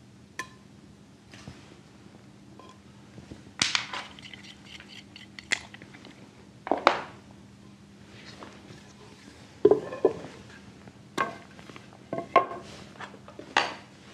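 Irregular wooden knocks and clatter as squared timbers are lifted and set down on wooden blocks, with lighter clinks of metal carpentry tools, over a faint steady hum.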